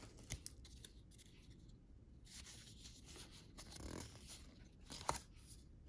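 Faint clicks and light rustling of trading cards being handled and laid down, a few short ticks spread through an otherwise near-silent room.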